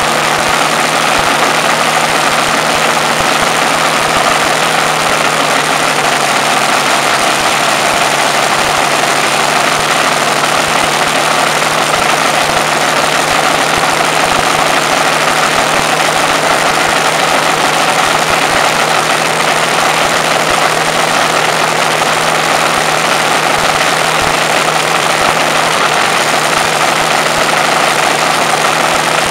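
Rolls-Royce Merlin supercharged V12 aero engine running at a steady speed and turning its propeller: a loud, even drone with no revving up or down.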